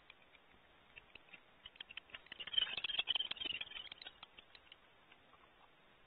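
Barn owls scrambling in the wooden nest cavity: a rapid run of scratches and clicks from talons and wings on wood and debris, densest about two and a half to three and a half seconds in, then dying away.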